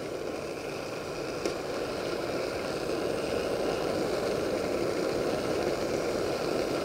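PT-1 primus pressure stove burning steadily, turned down, under a pot of boiling water, with a spoon stirring the dumplings in the pot. A light click about a second and a half in.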